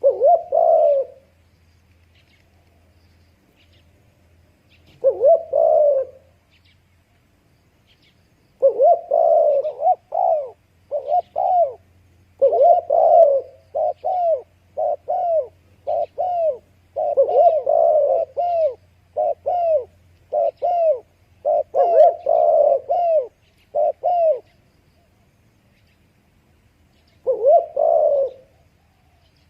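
Spotted dove cooing. There is a phrase at the start and another about five seconds in, then a long run of short, closely repeated coos from about nine to twenty-four seconds, and one more phrase near the end.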